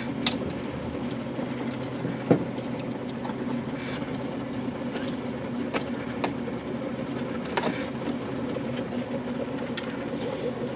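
Steady electric motor hum from O-scale model train equipment, with scattered light clicks and ticks.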